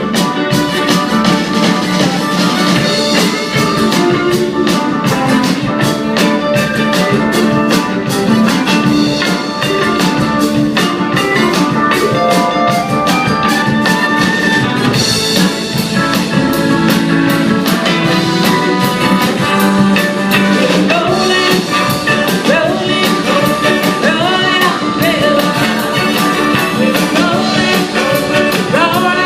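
Live band playing a song, with a drum kit keeping a steady beat under the other instruments.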